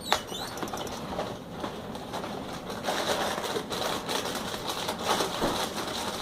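Dry cereal being handled and poured: irregular rattling and clattering with occasional clicks, busier in the second half.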